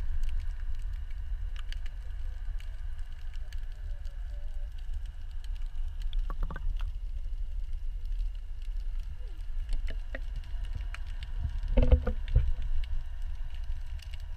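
Muffled underwater ambience picked up through a camera's waterproof housing: a steady low rumble with faint steady whining tones and scattered small clicks. A short cluster of knocks comes about six and a half seconds in, and a louder one about twelve seconds in.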